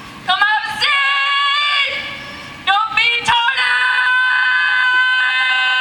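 A woman's loud holler calling students to class: two long calls, each swooping up at the start and then held on one high pitch, the second held for several seconds.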